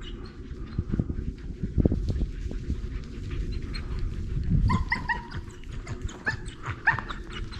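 Hunting dog whining in a few short, high calls in the second half, over low rustling and thumping.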